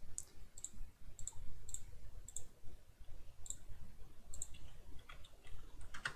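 Computer mouse buttons clicking, short sharp clicks often in close pairs at irregular intervals, with a quicker run of clicks about five seconds in.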